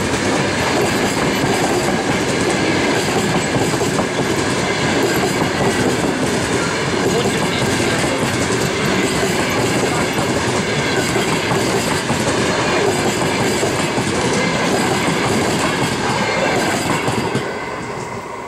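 Passenger coaches of a departing Russian long-distance train rolling past at close range, their wheels running steadily over the track. The noise drops off near the end as the last coach passes.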